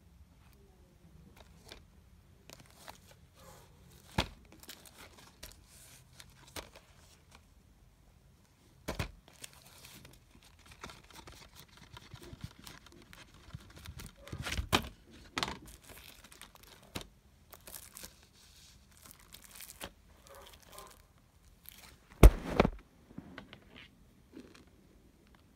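Plastic shrink-wrap crinkling and tearing as a Blu-ray case is unwrapped and handled. Scattered sharp clicks and knocks come from the plastic case, the loudest about 22 seconds in.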